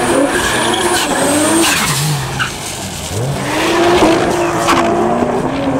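Toyota Supra drag car doing a burnout: the engine is held at high revs with the rear tyres spinning and squealing. About two seconds in the revs drop sharply, then climb again as the car pulls forward.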